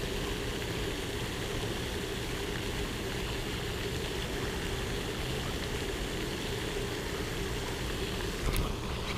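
Steady rushing spray of a pond aerator fountain with a low, even hum under it, and a few short clicks near the end.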